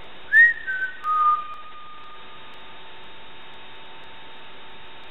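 Whistling: three notes stepping down in pitch, a short rising first note, a brief second, then a longer lower note held for about a second and a half. A faint steady hum runs underneath.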